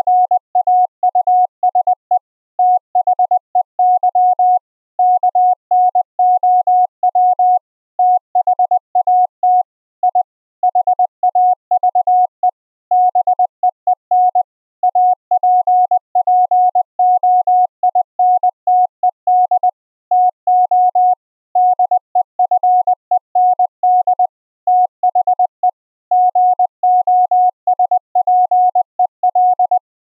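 Morse code (CW) practice text from fldigi: a single mid-pitched beep keyed on and off in fast dots and dashes, grouped into characters and words with short gaps. It stops just before the end.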